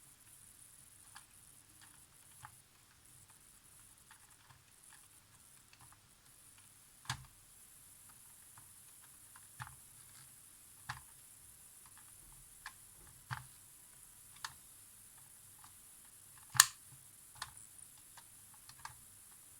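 Scattered, irregular light clicks and taps of small tools and camera parts being handled, with one much sharper click late on.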